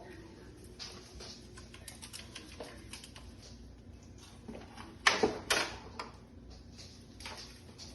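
Light clicks and taps of handling things in a small kitchen, with two sharp, louder knocks about half a second apart a little past halfway.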